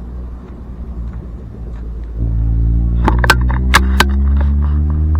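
An engine running close by, with a steady low hum that comes in louder about two seconds in, and a few sharp clicks around the middle.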